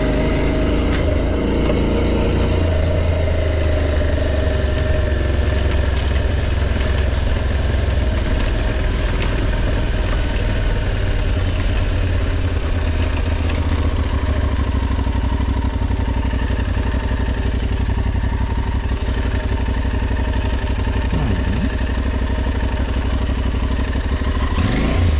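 Aprilia Tuareg 660's parallel-twin engine running steadily while the motorcycle is ridden along a dirt trail, with an occasional knock or rattle.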